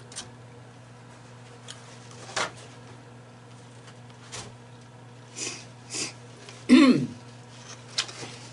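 A person sniffling a few times, with a short, louder voiced noise a little before seven seconds in, then wiping the nose with a paper napkin near the end.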